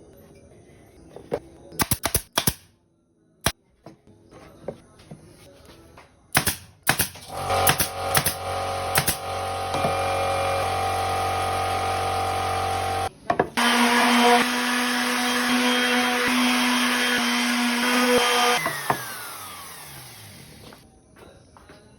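Electric power tool working wood. First come a few sharp knocks and clicks. Then a motor runs steadily for about five seconds, stops, and starts again louder and harsher for about five seconds, finally winding down with a falling pitch.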